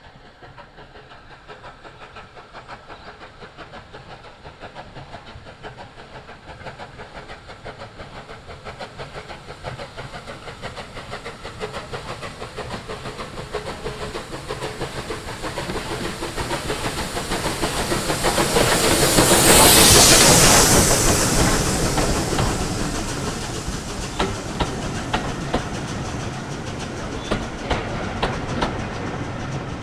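Steam locomotive 21C127 'Taw Valley', a three-cylinder Bulleid West Country Pacific, working a passenger train as it approaches. Its exhaust beats grow steadily louder until the engine passes close by about twenty seconds in with a loud rush of steam. The coaches then roll past with a rhythmic clickety-clack of wheels over the rail joints.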